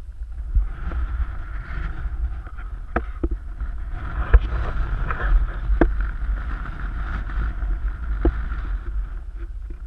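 Wind buffeting the microphone of an action camera carried on a stick, a steady low rumble with a hiss over it. About half a dozen sharp taps land at irregular moments.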